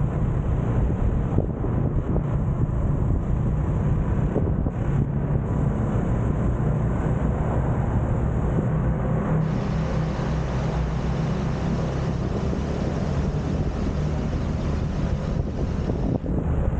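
Steady rush of wind on the microphone and road noise from a scooter riding along at speed.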